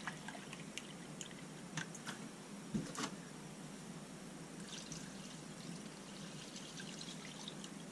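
Milk poured from a plastic measuring cup into a pan of diced potatoes, a soft steady pour with a couple of light clicks about three seconds in.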